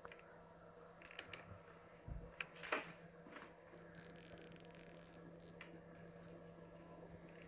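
Faint handling noises from a laptop and its cable being handled: a few soft clicks and rubs, mostly in the first three seconds and once more past the middle, over a low steady hum.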